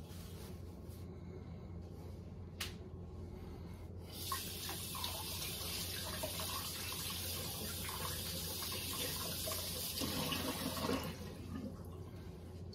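Kitchen sink faucet running as hands are rinsed under it. The water comes on about four seconds in as a steady splashing hiss and is shut off about seven seconds later.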